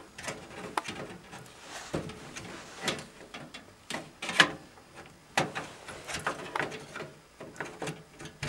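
Irregular clicks, knocks and scrapes of a graphics card being handled and pushed into a motherboard's expansion slot, the loudest click about four and a half seconds in.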